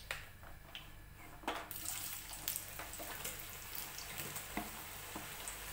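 Raw potato sticks going into hot oil in a kadhai to deep-fry: after a quiet start, a steady hissing sizzle sets in about a second and a half in and carries on, with scattered crackles and pops.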